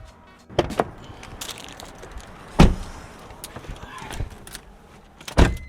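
A few sharp knocks and clunks: two close together near the start, the loudest about two and a half seconds in, and another near the end.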